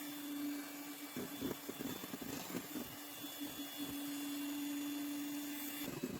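Electric mixer running steadily while beating egg whites, with uneven rattling from about a second in to three seconds in; the motor stops near the end.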